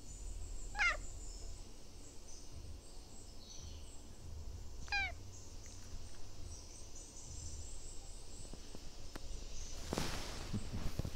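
Domestic cat giving two short, high-pitched calls about four seconds apart, each sliding steeply down in pitch. Near the end come rustling and bumps close to the microphone.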